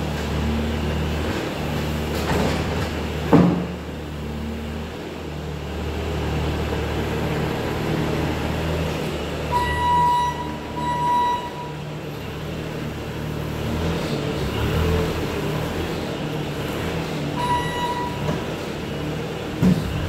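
Bobcat T595 compact track loader's 74 hp turbo diesel engine running steadily. A sharp knock comes about three seconds in and another near the end, and a few short electronic beeps come around the middle and near the end.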